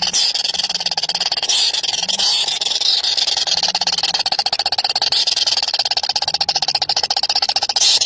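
Nestlings begging for food: a continuous, rapid, high-pitched chittering.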